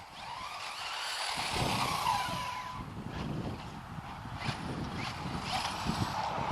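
Brushless electric motor of an FTX Vantage RC car whining as it speeds up and slows down, its pitch rising and falling, over rough rumble from the tyres on the road. Several sharp ticks come in the second half.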